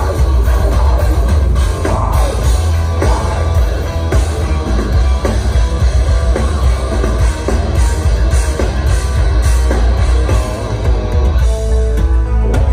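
Heavy metal band playing live at full volume: distorted electric guitars, bass and drum kit, heard from within the crowd with a heavy, booming low end.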